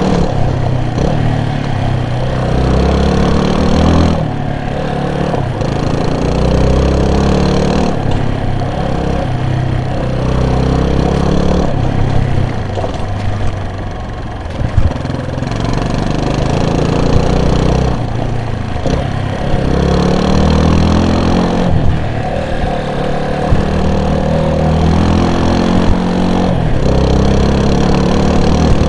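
A vehicle's engine running under way, its pitch climbing and dropping again every few seconds as it accelerates and eases off. A few short sharp clicks stand out, near the middle and later on.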